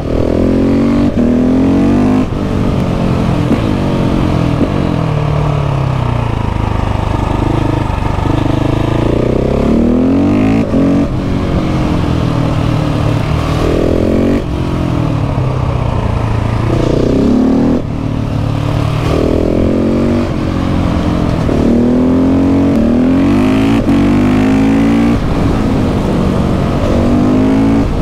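KTM 690 SMC R's single-cylinder engine pulling hard through the gears. The revs climb and then drop sharply at each gear change, over and over, with a few brief roll-offs before it pulls again.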